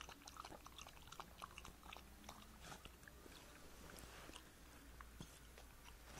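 Near silence with faint, scattered clicks and ticks: the small mouth and sniffing noises of a puppy at a water bucket, nosing at the ground.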